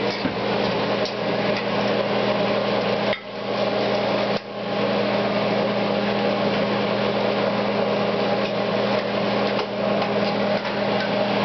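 Electric mixer running steadily with a constant hum, kneading a dough that has just had water worked in.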